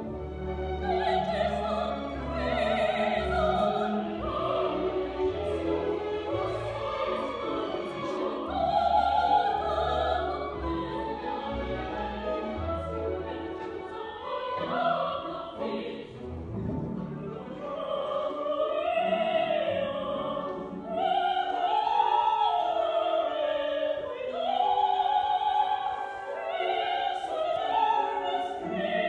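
Live operatic singing with orchestra, heard from the audience seating of a theatre.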